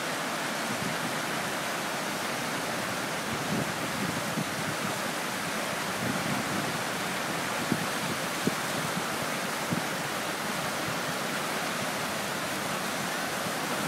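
Steady rush of a flooded river's fast brown water breaking over rapids and standing waves.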